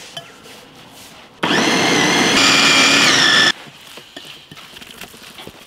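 Electric food processor running for about two seconds, chopping blanched shredded radish and carrot. Its motor whine steps up in pitch midway, then falls away as it stops.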